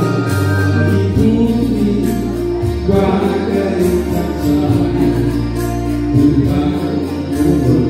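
A man singing through a microphone and PA, with amplified instrumental accompaniment holding steady bass notes that change every second or so.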